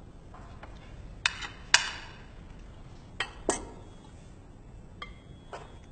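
Plates and cutlery clinking during a meal: about six separate short clinks spread over several seconds, a faint metallic ring trailing after some of them.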